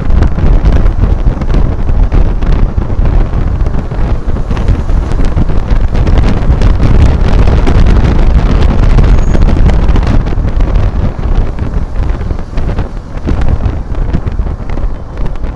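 Wind buffeting the microphone of a phone carried on a moving boda boda motorcycle taxi, a loud, rough rumble from the ride's airflow and road noise, easing a little after about ten seconds.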